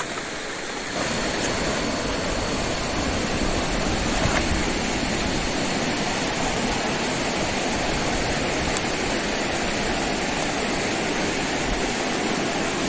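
Steady rushing of river water, stepping up in loudness about a second in and then holding even.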